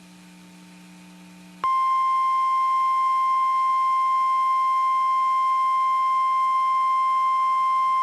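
Emergency Alert System attention signal: a single steady tone just above 1 kHz, the National Weather Service warning alarm tone that announces a severe thunderstorm warning. It starts sharply about one and a half seconds in, after a faint low hum.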